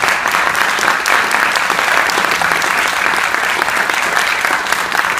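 Audience applauding: many hands clapping in a large hall, a steady dense patter.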